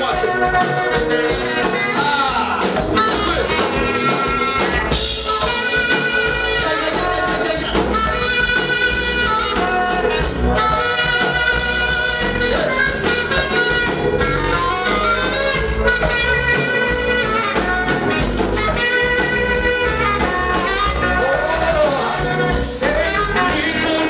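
Group gospel praise singing in Swahili over a live band with a steady beat and a tambourine.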